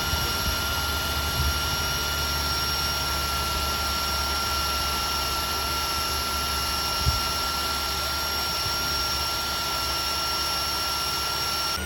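Electric drill running at a steady high whine, boring into the lock cylinder of a steel toolbox. One brief knock comes about seven seconds in.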